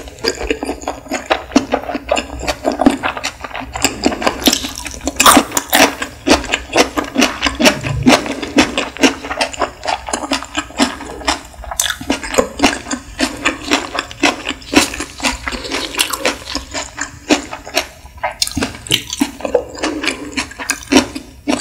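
Close-miked wet chewing of nigiri sushi: quick, dense smacking and squishing mouth sounds, many clicks a second.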